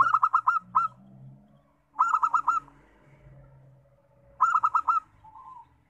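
Zebra dove (local perkutut) singing: three quick bursts of four to five staccato cooing notes, about two seconds apart, with a softer single coo after the last burst.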